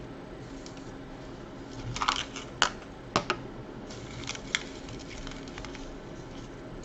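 Hard plastic toy fish and a plastic net hoop clicking and knocking together as they are handled. There are a few sharp taps, mostly between two and five seconds in.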